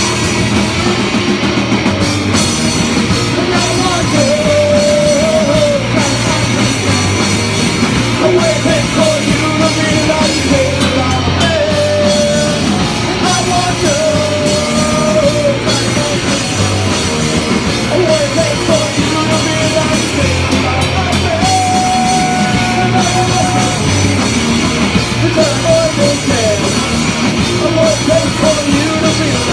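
Rock music with a drum kit, played as an instrumental passage with no vocals. A lead melody line slides and bends over a steady beat.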